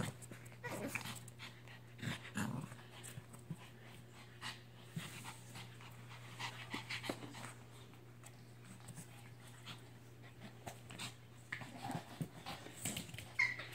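Two Pomeranians play-fighting over a dog bed: short, irregular bursts of small-dog growling and panting, with scuffling clicks as they wrestle.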